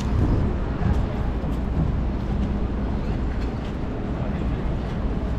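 Busy city street ambience: a steady low rumble of passing traffic.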